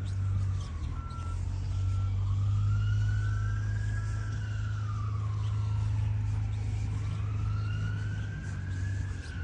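Emergency vehicle siren on a slow wail, rising and falling twice. Under it are a truck's regular reversing beeps and the steady low rumble of an idling truck engine.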